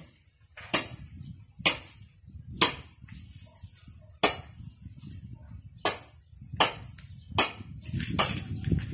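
Sharp knocks and taps, about eight of them at roughly one a second, from hand-binding the head of a grass-flower broom with needle and cord. A faint steady high whine runs underneath.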